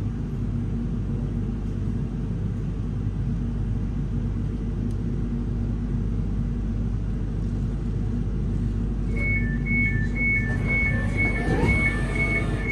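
Steady low hum inside a Class 701 'Arterio' train standing at the platform. About nine seconds in, the two-tone door-closing warning starts, beeping high-low about one and a half times a second, with a rising whine underneath near the end.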